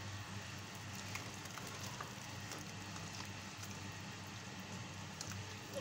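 Vegetable-and-chicken Manchurian gravy simmering in a wok, a faint steady bubbling hiss with scattered small pops and clicks as a spatula stirs it, over a low steady hum.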